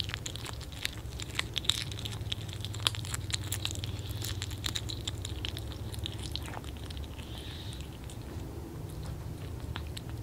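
Two kittens biting and chewing small raw fish: a string of wet clicks and crunches, dense in the first few seconds and thinning out in the second half, over a steady low hum.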